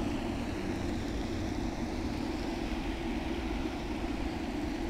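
Steady low rumble and hiss of outdoor background noise, with no distinct event.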